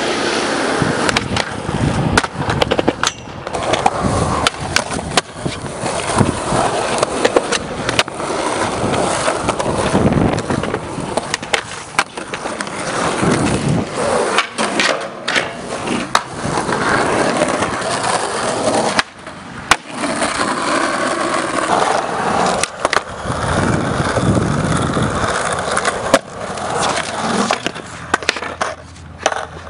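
Skateboard wheels rolling on concrete with a steady rumble, broken by many sharp clacks and knocks of the board popping and landing. The sound drops out suddenly for a moment about two-thirds of the way through.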